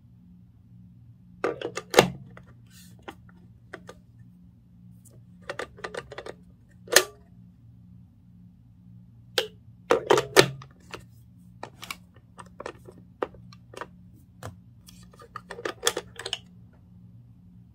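Irregular clicks and knocks of a hard plastic charger adapter with a two-pin plug being handled and pushed against a wall socket, coming in small clusters, over a faint steady low hum.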